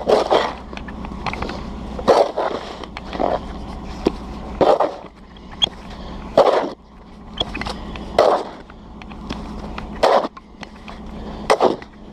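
Snow shovel scraping over pavement, stroke after stroke, about seven strokes spaced every one and a half to two seconds.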